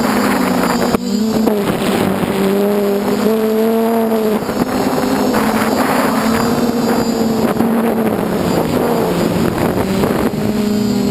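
DJI F450 quadcopter's brushless motors and 8-inch propellers buzzing in flight, the pitch wavering up and down, with wind rushing over the onboard camera's microphone.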